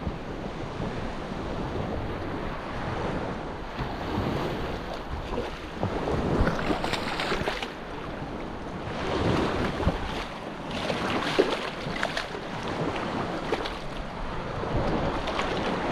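Small surf washing in shallow water, with wind buffeting the microphone. From about the middle on come irregular splashes as a hooked striped bass thrashes at the water's edge and is grabbed by hand.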